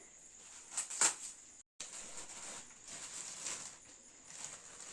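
Soft rustling and crinkling of gift packaging being handled and opened, with two sharp crinkles about a second in and a brief break in the sound just after.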